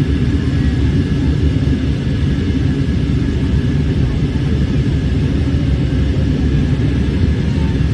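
Airplane cabin noise in flight: a steady, loud low rumble of the engines and the air rushing past the fuselage.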